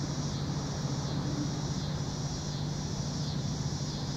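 Steady outdoor background noise: a constant low hum under an even high hiss, with no distinct events.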